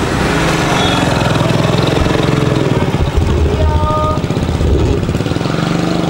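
Engine of a small pickup truck running close by at low speed, a steady low engine note that grows a little stronger about halfway through.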